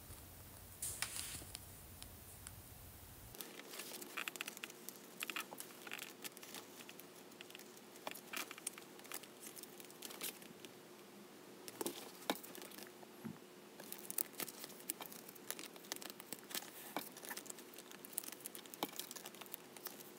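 Clear plastic binder pocket sleeves and paper card sleeves crinkling and rustling as photocards are handled, slid into the pockets and the ring-binder pages turned, with irregular small clicks and taps. A faint steady hum comes in about three seconds in.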